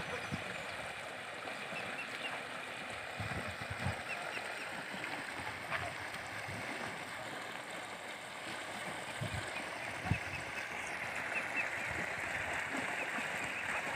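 Steady wash of flowing water, with light splashing as mute swans and their cygnets dabble at the water's edge.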